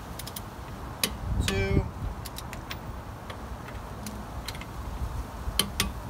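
Torque wrench and socket tightening a car's wheel nuts to 100 foot-pounds: scattered metallic clicks, a short run of rapid ratchet ticks about a second and a half in, and a few sharp clicks near the end.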